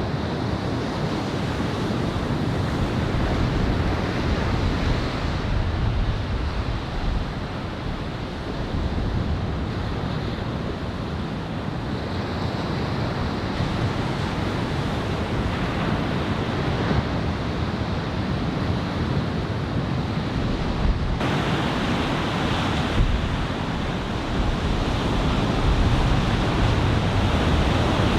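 Ocean surf from a shoulder-high typhoon swell breaking and washing in, a steady rushing noise, with wind buffeting the microphone.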